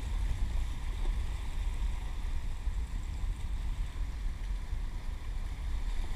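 Wind buffeting the camera's microphone in a steady low rumble, over the wash of fast-moving inlet water.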